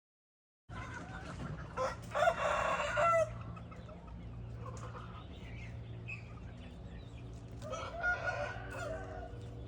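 Backyard chickens, a rooster and hens, calling: one loud pitched call about two seconds in and another about eight seconds in, over a steady low hum.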